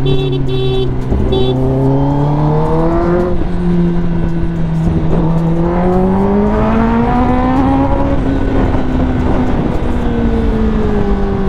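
Kawasaki ZX-10R's inline-four engine through an SC Project long-can exhaust, riding under way. The revs climb twice and then ease off near the end, and there are two short high beeps near the start.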